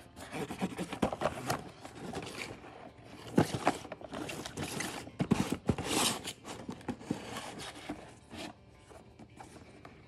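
Cardboard boxes handled and slid across a tabletop: irregular scraping and rubbing with small knocks, dying down near the end.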